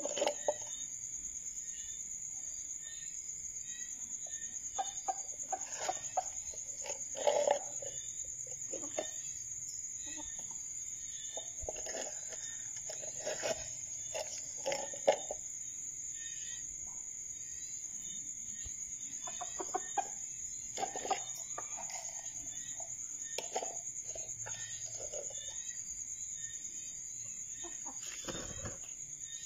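Red junglefowl clucking: short low calls come now and then, some in quick runs, over a steady high-pitched ringing. A single knock comes near the end.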